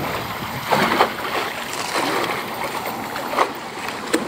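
Choppy water lapping and splashing, with irregular louder splashes, the strongest about a second in.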